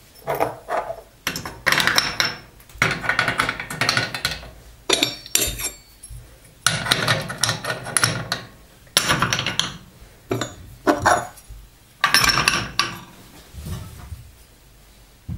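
Metal burner caps and flame spreaders of a gas hob being set back onto their burners by hand: repeated clinks and clatters of metal on metal, in short bursts with brief ringing, dying away near the end.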